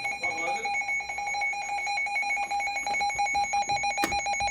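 Midland WR100 weather radio sounding its alert tone: a high, rapidly pulsing beep that keeps going because the radio is set to tone mode. A sharp click about four seconds in.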